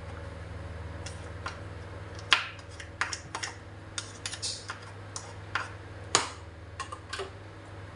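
Cooking oil heating in a nonstick wok, crackling with irregular sharp pops, loudest a little past two seconds and again about six seconds in. This is typical of water left on the freshly washed pan spitting in the hot oil.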